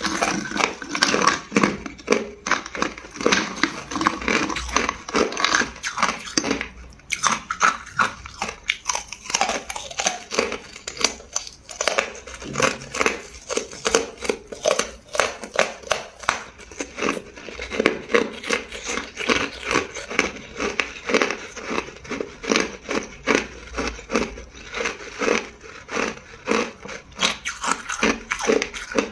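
Hard clear ice being bitten and chewed: a continuous run of sharp crunches and cracks, several a second.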